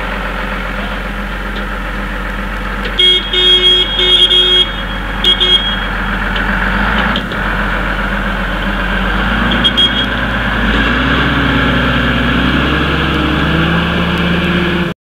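A motor vehicle's engine running steadily, with a cluster of short, high beeps about three seconds in and a couple more near ten seconds. The engine's pitch climbs slowly over the last few seconds.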